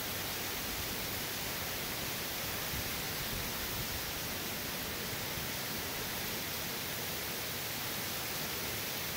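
Steady, even hiss of heavy hurricane rain driven by wind.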